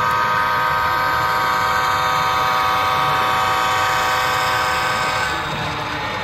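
Multi-chime diesel locomotive horn from a sound-equipped HO-scale model locomotive, held in one long blast for the grade crossing. It cuts off about five seconds in.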